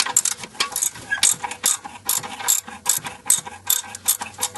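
Socket ratchet wrench clicking in rapid back-and-forth strokes, about two bursts a second, turning out a loosened bolt.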